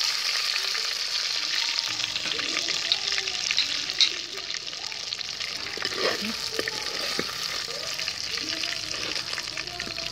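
Marinated chicken pieces deep-frying in hot oil, sizzling and crackling steadily, while a slotted spoon scrapes and clinks against the pot as the fried pieces are lifted out; the sharpest clink comes about four seconds in.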